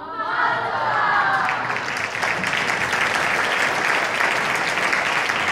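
Theatre audience applauding at the end of a song. The applause swells over the first second or two, then holds steady.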